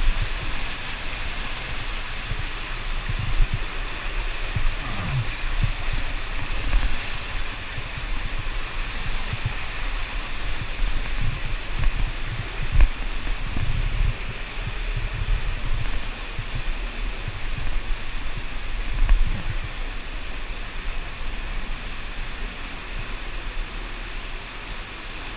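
Underground river in a cave passage: a steady rush of flowing water, with irregular low thumps and knocks close by.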